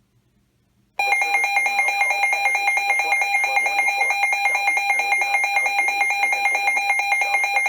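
Weather radio alert alarm announcing a flash flood warning: a loud electronic tone that starts abruptly about a second in and holds steady with a fast, even pulsing.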